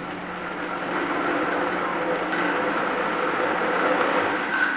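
Vitamix blender motor running at low speed, churning thick mango and banana with no added liquid. It gets louder about a second in, and a higher whine joins near the end as the speed comes up.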